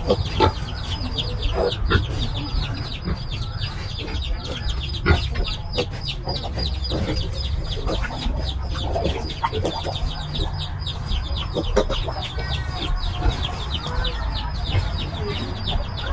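Farm animals calling: a busy, unbroken run of short high calls, several a second, over a low rumble.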